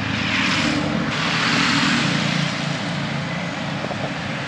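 Steady engine noise: a low hum under a rushing hiss, whose upper part drops off about a second in.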